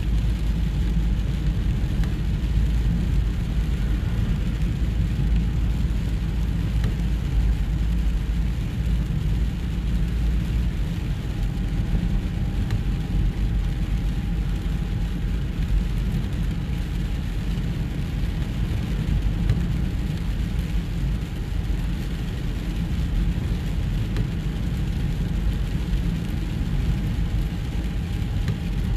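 A car driving in heavy rain, heard from inside the cabin: a steady low rumble of the car in motion with the hiss of tyres on a wet road and rain on the windscreen.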